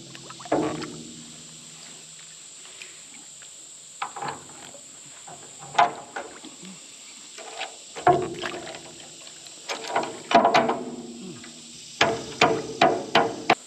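Metal clanking and banging: irregular strikes, each with a short ringing, and a quick run of strikes near the end.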